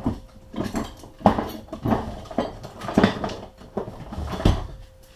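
Small metal parts being rummaged through and handled, clinking and clattering in a series of irregular knocks.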